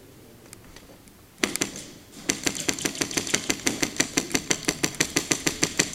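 Airsoft M4 rifle firing on full auto: a few single shots about a second and a half in, then a fast, even string of sharp clicks, about nine a second, that keeps going.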